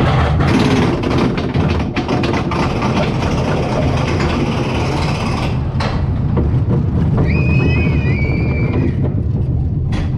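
Zamperla family gravity coaster train running along its steel track, a loud continuous rumble with a hiss over it for the first half. A high, wavering squeal lasts about two seconds in the second half.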